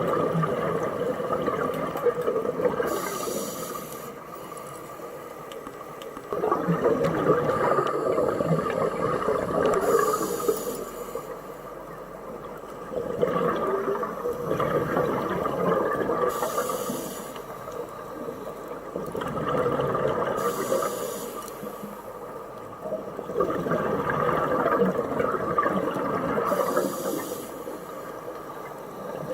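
Scuba diver breathing underwater through a regulator: a short hiss of air on each inhale, then a longer rush of exhaled bubbles, about five breaths at an even pace.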